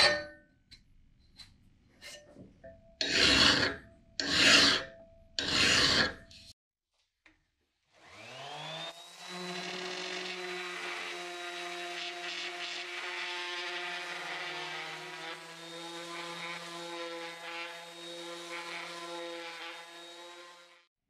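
A hand file rasping across the steel billhook blade in a vise, a few strokes with the last three long. After a short pause, a Bosch GEX 125-1 AE random orbital sander starts up with a rising whine and runs steadily on the blade, stopping just before the end.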